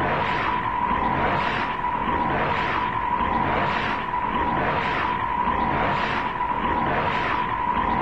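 Looped electronic sound effect of the giant robot King Joe Black: a steady high tone with rhythmic whooshing swells, about one every 0.8 seconds.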